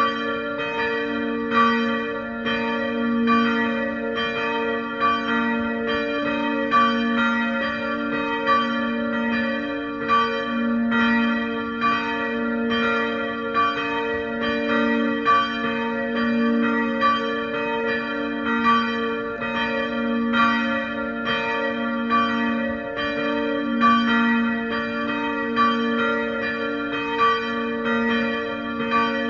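Two church bells of a small chapel, bells 1 and 2, swinging and ringing together. Their strikes overlap in an uneven rhythm over a steady hum that carries on between the strikes.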